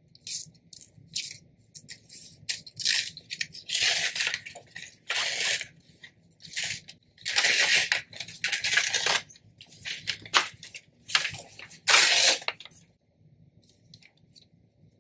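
Butcher paper and sublimation paper rustling and crinkling as they are peeled back from a freshly heat-pressed journal. A quick run of short crackly swishes, some longer and louder, stops about two seconds before the end.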